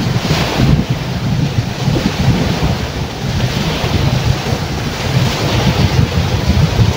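Surf breaking and washing over a rocky, pebbly shoreline in several surges, with strong wind buffeting the microphone.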